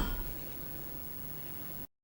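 Faint steady hiss of room tone, after the ringing tail of a sharp clink fades in the first moments. The sound cuts out completely for an instant near the end.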